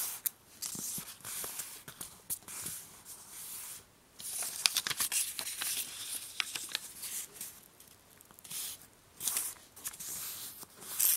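Strip of letter-sized paper being folded and creased by hand: the paper rustles and slides with small crackles as the edges are brought to the centre and the folds pressed flat, in several bursts with brief pauses.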